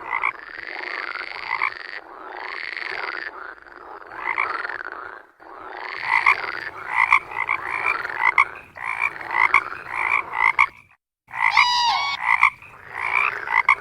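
Frogs croaking, one call after another. Near the end a short break is followed by a different, sliding call.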